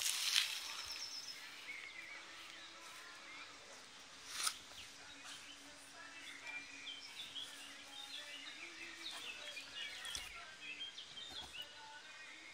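Small birds chirping in the background of an outdoor garden ambience, with a sharp click near the start and another about four seconds in.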